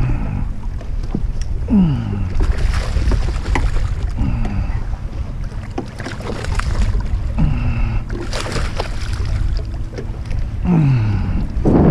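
A hooked bass splashing and thrashing at the water's surface beside the boat as it is played and netted, with two longer stretches of splashing, about two seconds in and again around eight seconds. Wind rumbles on the microphone throughout, and a low falling tone repeats about every three seconds.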